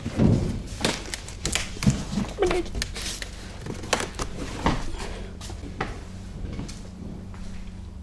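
Irregular knocks, scrapes and rustling of a person clambering into a wood-panelled cabin, with hands and body bumping against the wooden frame.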